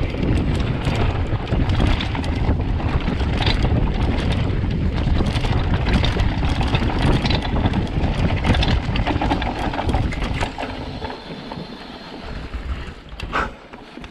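Downhill mountain bike riding fast over a rough dirt trail: wind on the microphone, tyre rumble and constant rattling and clicking from the bike. The noise eases off about ten seconds in as the bike slows, with one sharp clack near the end.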